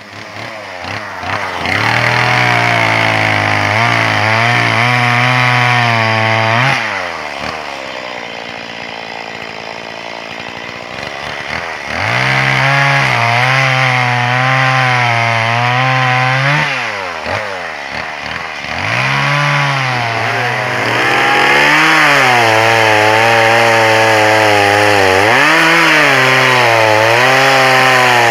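Two-stroke chainsaw cutting firewood logs. The engine runs at high revs, falls back about seven seconds in and again around seventeen seconds, then revs up again, its pitch dipping briefly under load in the cut.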